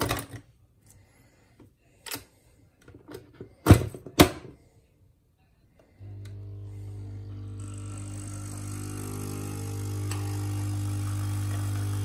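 Nespresso capsule machine: sharp clacks of the capsule lever being worked, the two loudest close together about four seconds in. About halfway through, the pump starts a steady hum that grows slowly louder, with a hiss joining as the coffee begins to brew.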